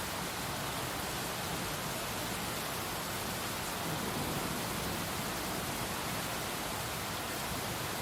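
Heavy rain pouring steadily, a dense even hiss with no single drops standing out.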